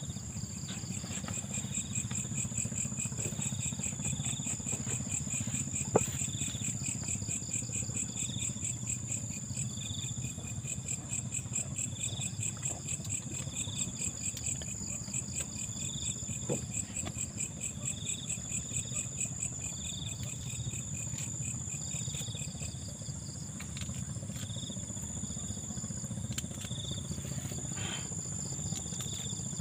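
Night insects calling: a continuous, rapid, high-pitched trill, with a second insect chirping about once a second, over a low steady background hum. There is one sharp click about six seconds in.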